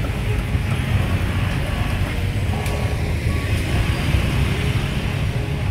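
Busy street ambience: a steady low rumble of motorbike and road traffic, with faint voices.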